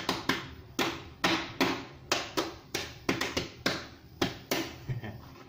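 A hand slapping the bottom of an upturned water basin, a dozen or more sharp taps at an uneven pace of two or three a second, stopping about four and a half seconds in. The tapping loosens a cured concrete weight plate so it will drop out of the basin used as its mould.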